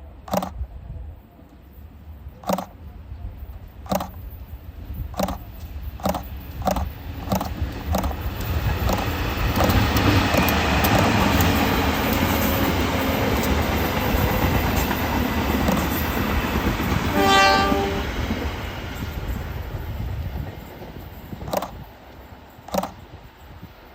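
A train passing over rail joints: wheel clicks come faster as it approaches, then the loud rumble of the train going by. A short horn blast sounds about two-thirds of the way through, and spaced wheel clicks return near the end as it moves off.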